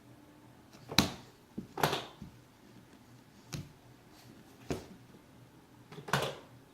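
A toy car being knocked and banged about by a baby: about five irregular sharp knocks a second or so apart, with a few lighter taps in between. The loudest knocks come about a second in and near the end.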